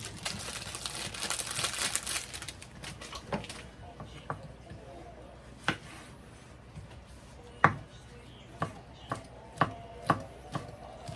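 Rustling for the first few seconds, then a kitchen knife chopping on a cutting board in single, unhurried strokes, roughly one every half second to a second.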